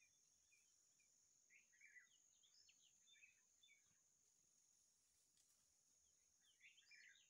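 Faint outdoor ambience with songbirds chirping in two quick phrases, about a second and a half in and again near the end, over a steady high-pitched whine.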